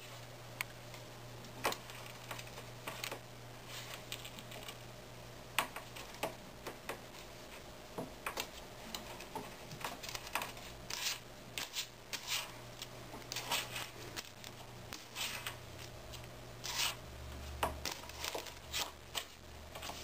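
A ferret nosing and pulling at a crinkly plastic treat bag: irregular short crackles and rustles, coming more often in the second half, over a faint low steady hum.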